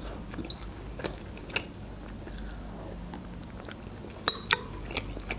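Close-miked chewing of a bite of flaky baked puff pastry, with small wet mouth clicks and two sharper clicks near the end.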